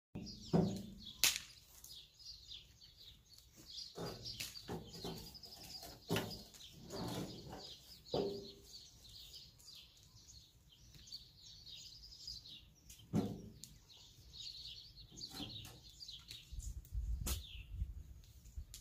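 Small songbirds chirping and singing throughout, with scattered sharp knocks and clatter from a metal wheelbarrow and spade being handled, and a low rumble near the end.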